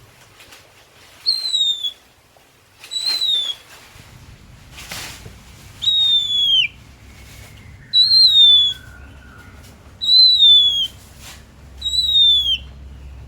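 Oriental magpie-robin (kacer) singing: a loud, clear whistle that falls slightly in pitch, given six times about every two seconds, with short sharp clicking notes between.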